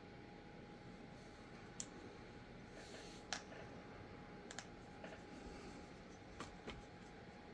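Faint room tone with about seven small, sharp clicks at irregular intervals, the loudest a little over three seconds in, over a faint steady hum.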